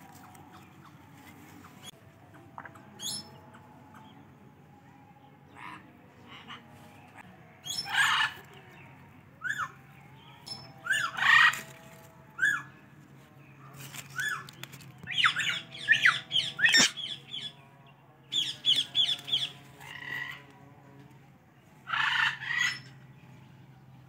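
Indian ringneck parakeet squawking, in short bursts of calls every few seconds, the loudest clusters around the middle and near the end.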